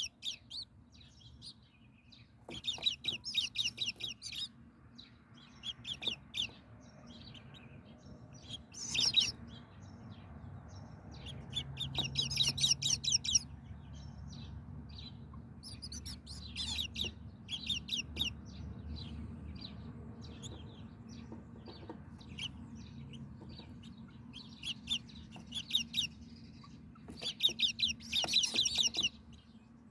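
Small birds chirping in quick bouts of rapid high notes, one to two seconds each, repeating every few seconds over a faint low hum.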